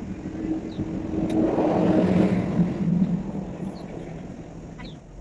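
A motor vehicle passing by: engine noise swells to a peak about two seconds in, then fades away.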